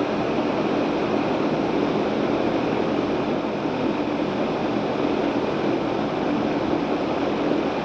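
Air-conditioning condensing unit running: a steady rush of fan air with a constant low hum.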